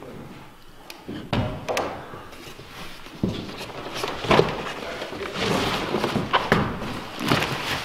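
Large cardboard shipping box being handled and opened: a string of knocks and thumps as the box is shifted and its flaps pulled back, with rustling and scraping of cardboard between them.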